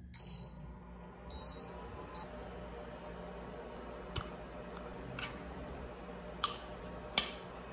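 An electronic appliance beeping in short high tones a few times, then four sharp clicks over a low steady background, the last click the loudest.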